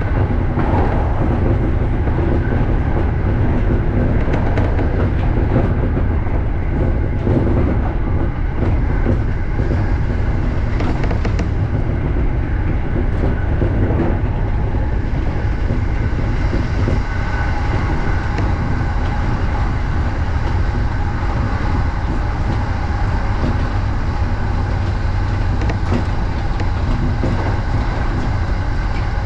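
JR Joban Line electric commuter train running at speed, heard from just behind the driver's cab: a steady low rumble of wheels on rail with a few faint clicks.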